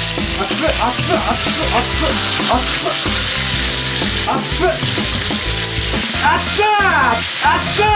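Beef steak frying in a hot pan of oil, a steady sizzle as metal tongs turn the pieces, over background music. About six seconds in, a drawn-out cry of 'hot!' with falling pitch cuts through.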